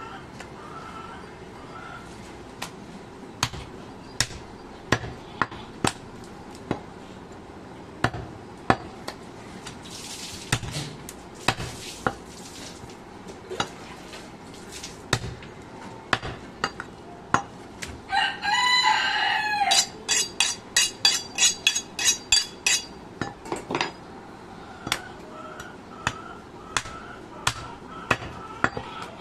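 Heavy butcher's cleaver chopping goat meat and bone on a wooden log chopping block: single chops about once a second, then a quick run of chops about two-thirds of the way through. Just before that run a rooster crows once, for about two seconds.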